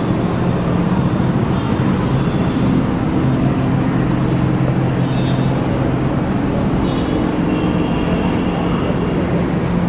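Busy bus-stand traffic: idling diesel bus engines give a steady low hum over general road noise.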